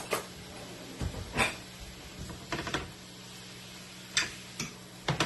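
Kitchen handling noises: a handful of separate knocks and clicks, as of containers and utensils being picked up and set down, over a faint steady low hum.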